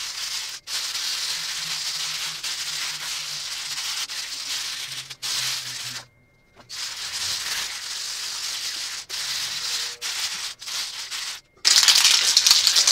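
Two-part DuraBlue aerosol can being shaken hard to mix in the freshly released catalyst: a continuous fast rattle of its contents. It pauses briefly about six seconds in and gets louder near the end.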